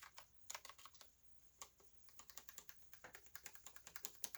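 Keys of an Alienware mechanical keyboard with Cherry switches being typed: a few scattered key clicks, a short pause, then a quick run of keystrokes from about two seconds in. Soft, quiet, smooth clicks rather than a loud clack.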